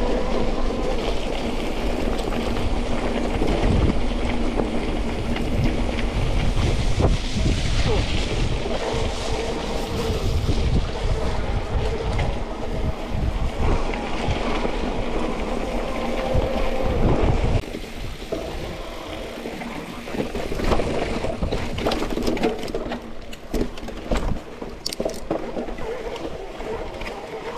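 Mountain bike ridden along a wet gravel track: tyre noise and wind rumbling on the camera's microphone, with small clicks and rattles from the bike. The rumble drops to a lower level about two-thirds of the way through.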